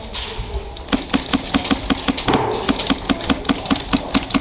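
Airsoft electric gun firing a steady string of shots, about five or six a second, each a sharp mechanical clack, starting about a second in.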